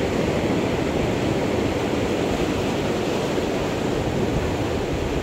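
Sea surf washing over and around rocky reef at the shoreline: a steady rushing wash of foaming water.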